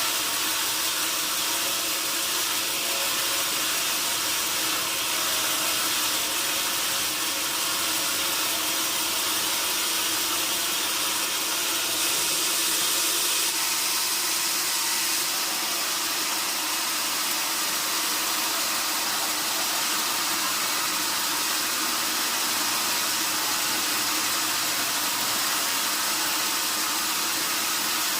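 Sawmill machinery running, a steady hissing noise with no breaks, slightly brighter about halfway through.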